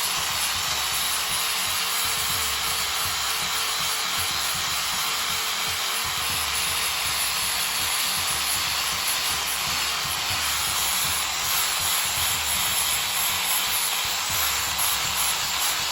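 Power sander running steadily against the wood of a large tree root, a continuous even hiss of abrasive on wood.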